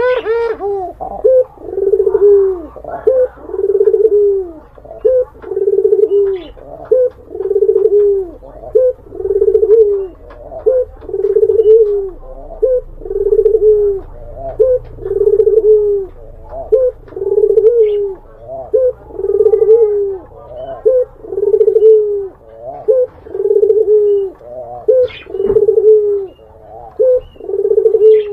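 Domestic ringneck dove (burung puter) cooing over and over at a steady pace, about one coo a second, each a short rising note followed by a longer held low note. It is the dove's wooing call.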